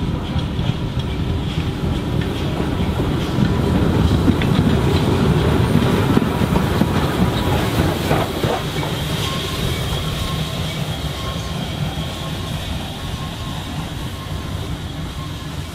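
Train rolling along the rails with clattering wheels, loudest a few seconds in and then slowly fading.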